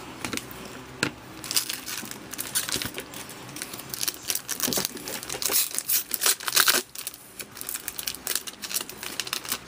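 Foil wrapper of an SP Authentic hockey card pack being torn open and crinkled, a dense run of crackles and rips starting about a second in.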